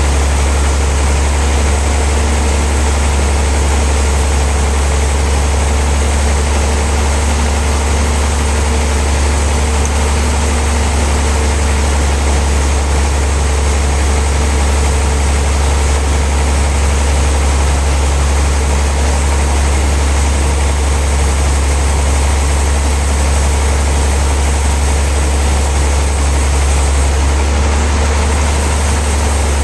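Sawmill machinery running steadily: a loud, constant low hum with a hiss of machine noise above it and no change in pace.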